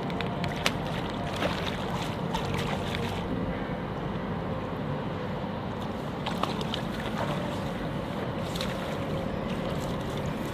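Steady rushing noise of wind and river water, with a few faint knocks.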